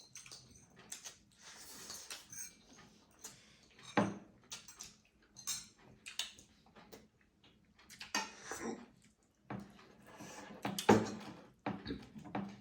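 Cutlery clinking and scraping against plates in scattered, irregular clicks, with louder knocks about four seconds in and again near eleven seconds, as several people eat.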